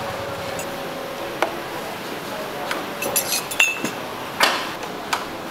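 Glasses and cups clinking as a street barista makes drinks: a few scattered knocks, a quick run of bright clinks about three seconds in with one ringing briefly, then two more knocks, over steady background noise.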